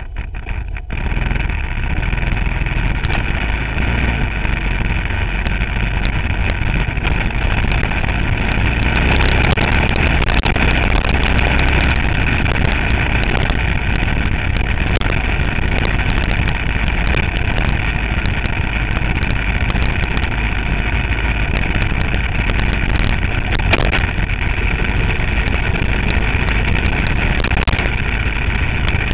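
Motorcycle riding on a dirt road: the engine comes up about a second in as the bike pulls away, then runs steadily at speed with wind and road noise.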